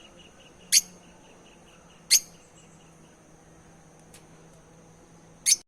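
African lovebirds giving short, sharp, high-pitched chirps: three loud single calls, about a second in, two seconds in and near the end, with a fainter one between. A faint steady high-pitched whine runs underneath.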